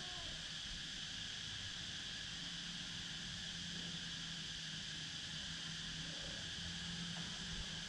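Steady hiss with a low hum underneath, even throughout: room tone with no distinct sound event.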